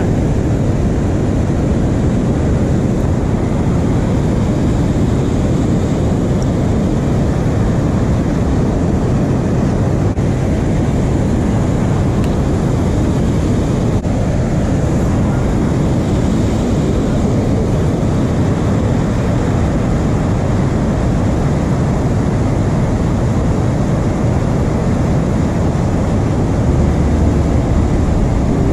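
A deep, steady rushing of fast, turbulent river water, even and unbroken throughout.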